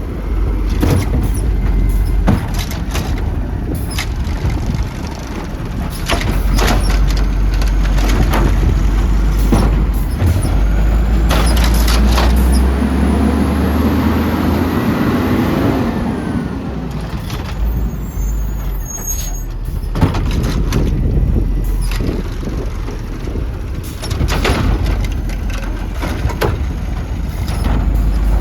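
Garbage truck working: its engine runs and revs under load, with repeated clanks and knocks and a rushing hiss that swells in the middle. Wind buffets the microphone.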